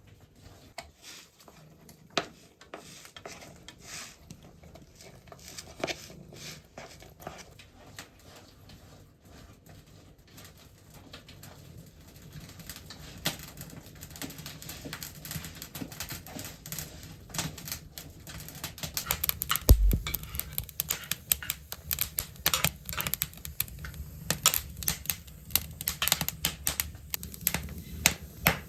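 Rapid irregular clicking and tapping, sparse at first and growing much denser after about twelve seconds, with one heavier knock near the twenty-second mark.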